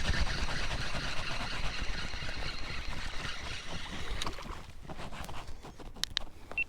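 Water rushing and splashing around a kayak on a river, a steady hiss with rumble that eases off after about four seconds, followed by a few sharp clicks near the end.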